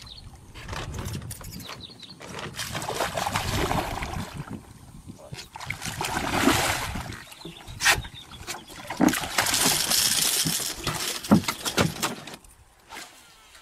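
A hooked toman (giant snakehead) thrashing and splashing at the water's surface beside the boat, in several spells, then a few sharp thumps in the second half as the fish is landed and flops on the boat's wooden deck.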